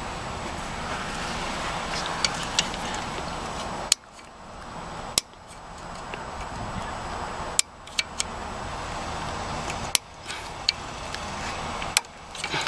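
Irregular sharp clicks and taps of a flathead screwdriver prying at a plastic clip beside a car alternator, about nine in all, over steady background noise.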